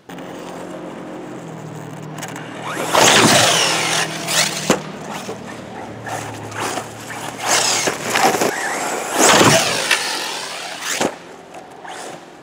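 Arrma Typhon 6S 1/8-scale electric buggy with a Castle brushless motor, whining as it drives and speeds past several times. The pitch rises and falls with each pass, and the loudest passes come about three and nine seconds in.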